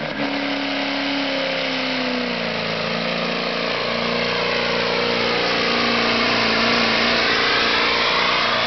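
Diesel pickup truck engine running at high revs under full load, dragging a weight-transfer pulling sled. Its pitch drops slightly about two seconds in, then holds steady.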